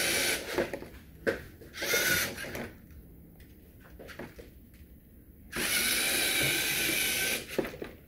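LEGO Mindstorms NXT servo motors whirring through their gears in short stop-start bursts as the robot car drives and turns: a brief whir at the start, another about two seconds in, and a longer run of about two seconds starting some five and a half seconds in.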